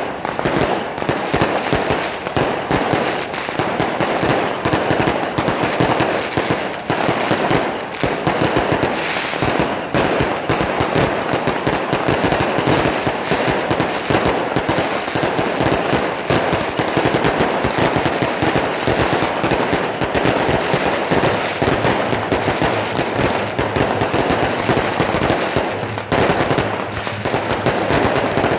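Firecrackers and fireworks going off in a dense, continuous rapid crackle of bangs, with no let-up.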